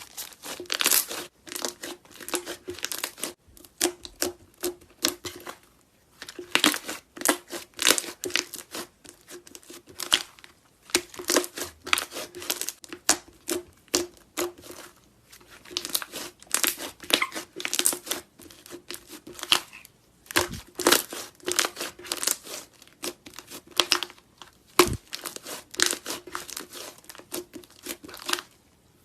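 Slime being squished and stretched, giving bursts of rapid crackling and popping clicks with short pauses between them.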